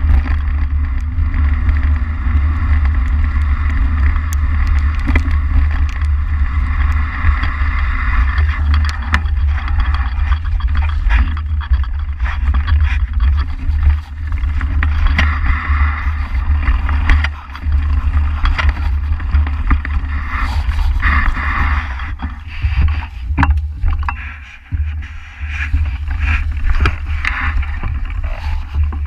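Mountain bike riding fast over a forest trail: wind rumbling steadily on the microphone, knobby tyres rolling over dirt and dry leaves, and many short clicks and rattles from the bike over bumps. The noise eases briefly twice in the second half.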